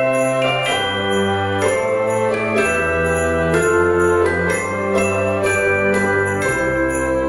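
Instrumental Christmas background music: held chords over a bass line that change about every second, with jingle bells shaken on a steady beat.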